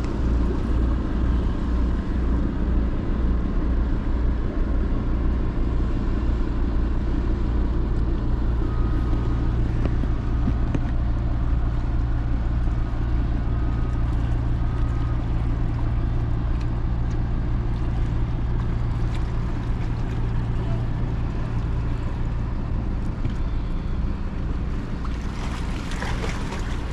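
Deep, steady drone of a large car carrier's engines as the ship passes close by on its way out to sea, easing a little near the end.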